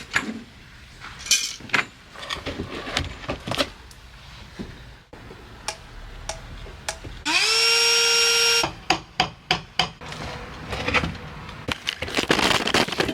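Metal knocks and clanks of tools working on a boat engine's fittings. In the middle, a power drill spins up and runs steadily for about a second and a half.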